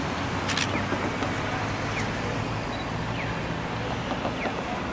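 Siemens S70 low-floor streetcar running slowly along the street, a steady low hum in the middle of city traffic noise and wind. A sharp click sounds about half a second in.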